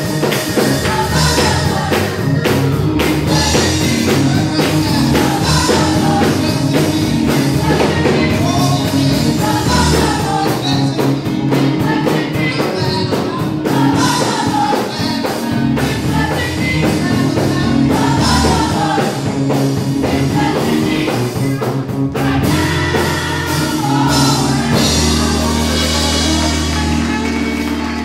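Live gospel praise-and-worship music: a band with drums and bass plays while singers sing. Near the end the drums drop out, leaving long held low notes under the singing.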